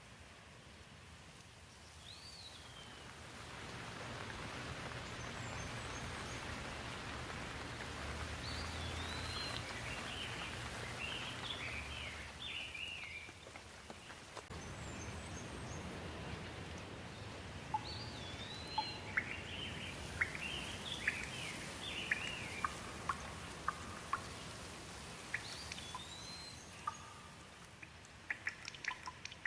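Recorded rain ambience: a steady rain hiss that swells up twice, with a low rumble underneath and birds chirping over it in short rising and falling calls. Sharp dripping ticks come near the start and again near the end.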